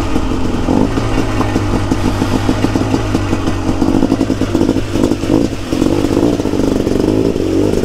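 KTM 300 two-stroke supermoto engine running as the bike is ridden, the note rising and falling with the throttle.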